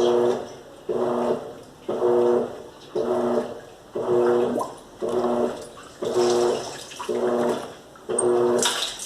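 Electrolux LAC13 top-loading washing machine agitating a load in water, about one stroke a second. Each stroke is a short motor hum with water sloshing that fades before the next.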